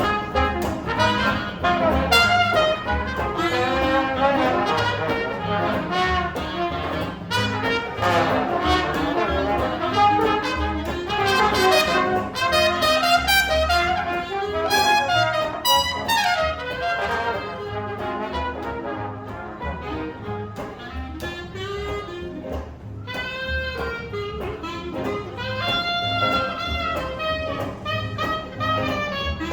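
Live traditional New Orleans jazz band playing an instrumental passage: trumpet and other brass horns weaving melody lines over bass and a steady beat.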